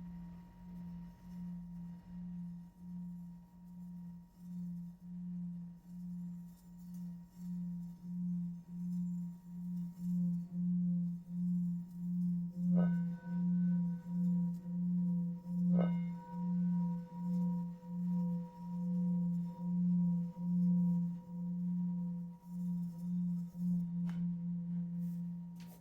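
Large brass Tibetan singing bowl sung by rubbing a velvet-covered wooden mallet around its rim: a low, steady hum with a slow pulsing beat that builds in loudness. Twice about halfway through, three seconds apart, the mallet clicks against the bowl, adding higher ringing tones that carry on over the hum, and the sound stops right at the end.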